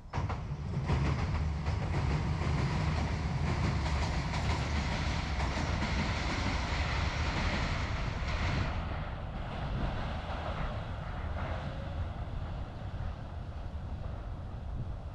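Diesel railcar train crossing a railway bridge: a heavy rumble with wheels clattering over the rail joints. It starts suddenly, stays loud for about eight seconds, then fades as the train moves away.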